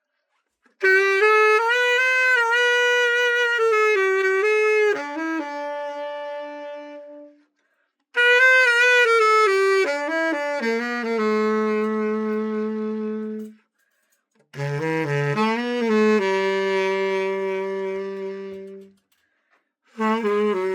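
A tenor saxophone, a Yamaha YTS-62 copy after a full overhaul, played solo in four slow phrases of long held notes with vibrato. There is a brief silence between each phrase.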